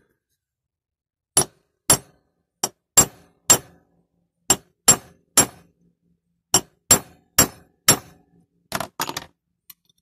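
Small hammer tapping the end of a steel pin to peen it over like a rivet on a die-cast toy's ladder: about a dozen sharp, ringing metal-on-metal taps in three groups. A few lighter clicks follow near the end.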